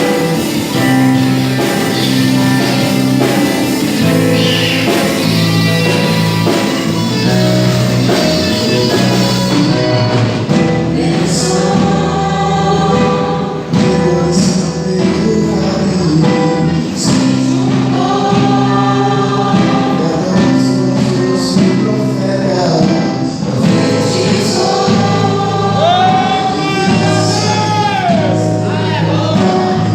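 Christian worship music: a choir singing long held notes over sustained chords and a bass line. A voice slides up and down with vibrato near the end.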